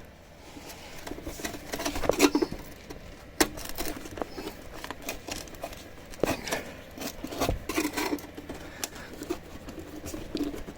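A screwdriver prying at plastic wheel-arch liner clips: irregular clicks, knocks and short scrapes of metal on plastic, a sharp knock about three and a half seconds in.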